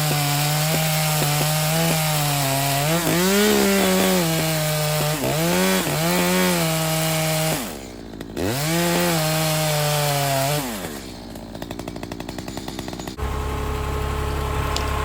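Two-stroke chainsaw running at high revs while cutting wood, its pitch rising and falling under load. About 8 s in, the throttle drops briefly and it revs back up; near 11 s it falls to a sputtering idle. From about 13 s a lower, steady engine hum takes over.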